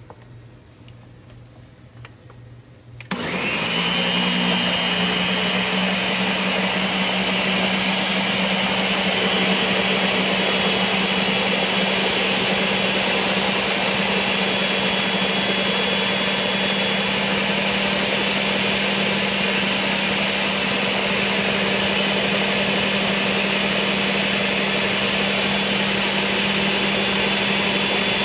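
Countertop blender switched on about three seconds in and then running steadily, puréeing a thick avocado crema: a constant motor hum with a high whine over it.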